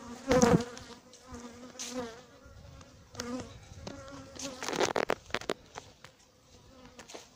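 Defensive honey bees buzzing around the microphone as they circle and attack, the buzz swelling and fading as single bees fly close, loudest about half a second in. A few short clicks come about five seconds in.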